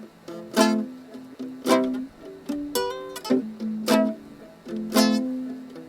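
Yamaha GL1 guitalele with nylon strings being strummed, a chord about once a second, with a quick picked run of single notes near the middle.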